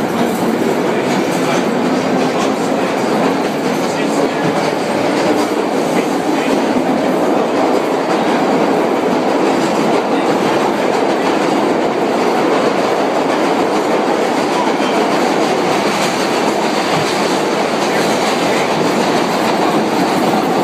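Vintage R1–R9 'Arnine' subway car under way, heard from inside the car: a loud, steady running noise of steel wheels on the rails that does not let up.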